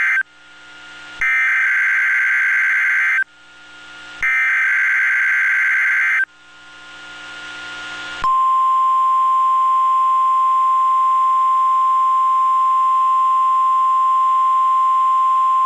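Emergency Alert System tones on NOAA Weather Radio for a tornado watch. The end of one SAME header burst is followed by two more of the warbling digital data bursts, each about two seconds long, with radio hiss rising in the gaps. About eight seconds in, the steady 1050 Hz Weather Radio alert tone begins and holds.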